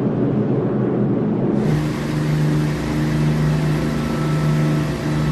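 Steady engine drone with a low, even hum. About a second and a half in, a muffled rumble gives way to a clearer, steadier drone.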